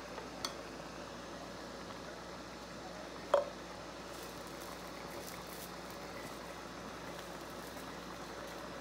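Pot of rice porridge simmering in hot-pot broth with a steady hiss, with a small tap about half a second in and a sharper knock about three seconds in.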